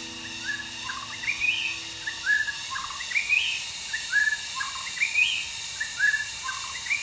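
White-rumped shama (murai batu) song: a short phrase of clear whistled notes ending in a rising note, repeated about every two seconds.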